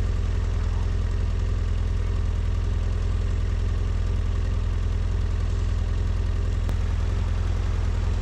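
BMW F800GS parallel-twin motorcycle riding steadily on a wet road in the rain, heard from the bike itself: an even engine drone under heavy low rumble and a wash of wind and wet-road noise, with no change in speed.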